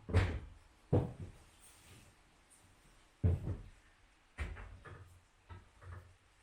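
A series of short wooden knocks and clunks while screws are worked out of old wall planks: a loud one at the start, another about a second in, one just past three seconds, then a cluster of smaller knocks.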